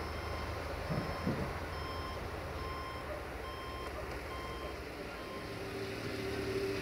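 An electronic warning beeper sounding short, evenly spaced beeps, a little more often than once a second, over a low distant rumble. A steady hum begins near the end.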